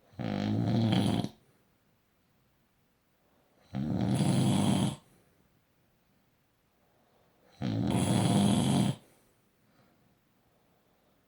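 A sleeping person snoring: three loud snores, each a little over a second long, coming about every four seconds, with quiet in between.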